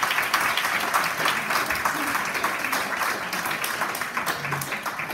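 Audience applauding, many hands clapping together; the clapping begins to die down near the end.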